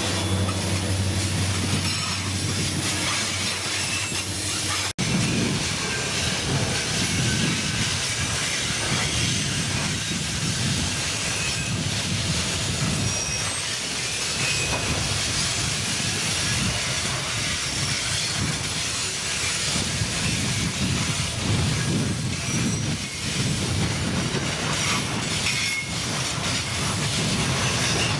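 Freight train wagons rolling past close by: a steady rumble of wheels on rail with uneven low clattering thumps and short, high wheel squeals. A steady low hum fills the first five seconds, then the sound breaks off for an instant and the rolling noise resumes.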